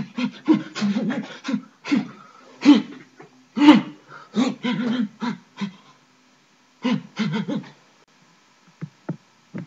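A man making wild, wordless vocal noises in short rapid bursts, playing at being crazy. They stop about three-quarters of the way through, and a few faint knocks follow.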